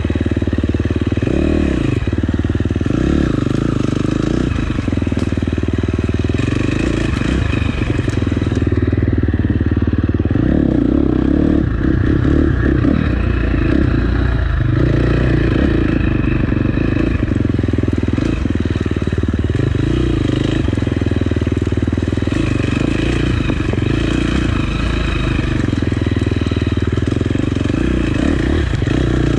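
Dirt bike engine running as it is ridden along a rough forest single track, the revs rising and falling with the throttle.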